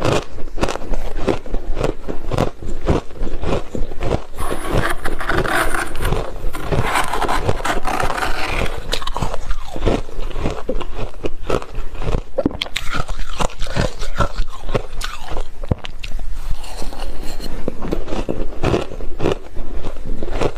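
Close-up crunching of soft freezer frost being bitten and chewed, a dense run of crisp crunches with stretches of scraping in between.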